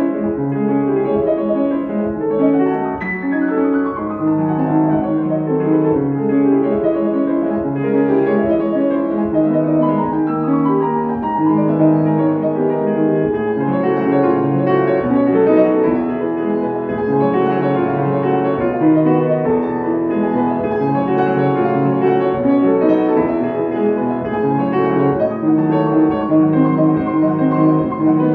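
Steinway & Sons grand piano played solo: a classical piece in a continuous stream of many notes, at a steady, fairly loud level.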